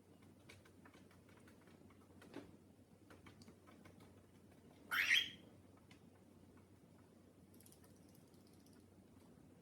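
A cockatiel gives one short, harsh call about five seconds in, against faint scattered taps and scratches from the birds' feet on cardboard.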